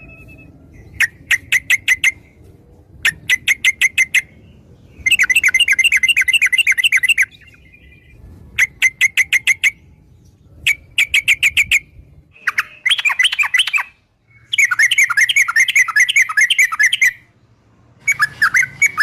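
Yellow-vented bulbul calls: repeated bursts of rapid chattering notes, each lasting one to two seconds with short gaps between them, and more varied warbling phrases about two-thirds of the way in and near the end.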